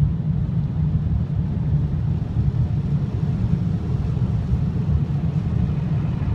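Steady low rumble inside a car's cabin, with no distinct knocks or tones.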